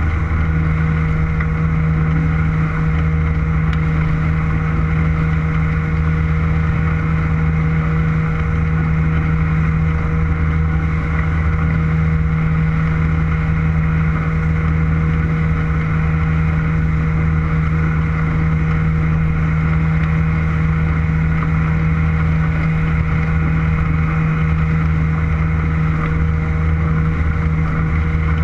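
Motorboat engine running steadily at an unchanging pitch as the boat cruises, with a constant low hum.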